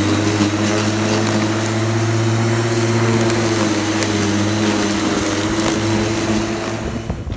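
A small electric rotary lawn mower with a 35 cm deck running steadily as it cuts through long grass, with a low, even motor hum. The motor stops near the end.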